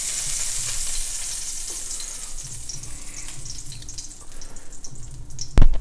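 Bacon sizzling as it fries in a pan, the sizzle loudest at first and then settling lower. A sharp, loud knock near the end.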